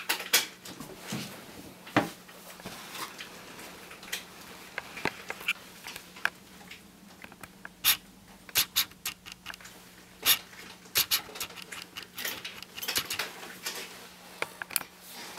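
Irregular small clicks, taps and rustles from small hair-product containers and packaging being handled, some coming in quick clusters, over a faint steady hum.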